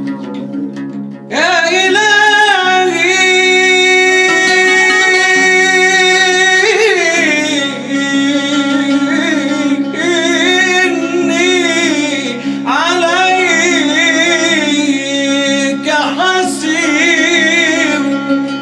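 Nasheed singing: a man's voice in long, ornamented phrases with a wavering pitch over a steady low drone. The voice enters about a second in and pauses briefly midway.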